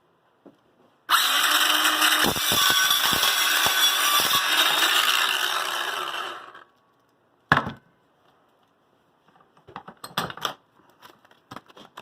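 Handheld electric power tool running steadily for about five seconds, then winding down. A single knock follows, then light handling clicks.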